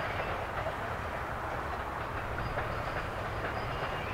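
Loaded grain hopper cars of a freight train rolling past at steady speed: a continuous rumble and rattle of steel wheels on rail.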